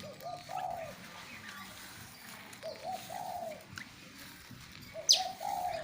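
A dove cooing three times, each phrase a couple of short notes followed by a longer arched coo. Faint chirps of other small birds run underneath, and a sharp, loud high note sweeps upward just before the third coo.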